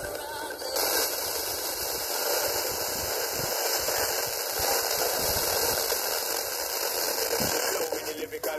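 FM radio static from a TEF6686 tuner: a steady, loud hiss of an empty or too-weak frequency. It comes in sharply about a second in and breaks off near the end.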